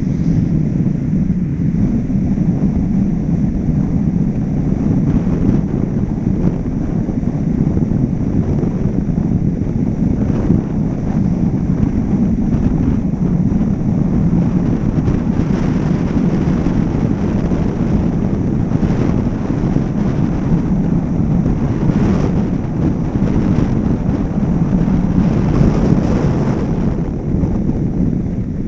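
Steady rush of wind buffeting the microphone of a camera mounted on the roof of a moving car, mixed with the car's road and tyre noise.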